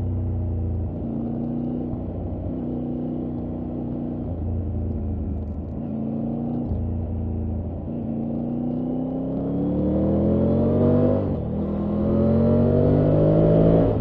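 Triumph Tiger 900 Rally Pro's three-cylinder engine under way. It runs at a fairly steady note with a few short throttle breaks, then accelerates with the pitch climbing. About three-quarters through there is a brief break and a drop in pitch as it shifts up a gear, and the note climbs again.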